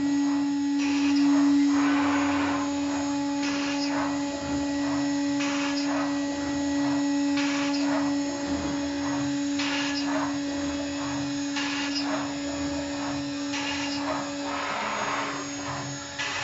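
CNC router spindle running with a steady whine, with short rushes of hiss about every two seconds.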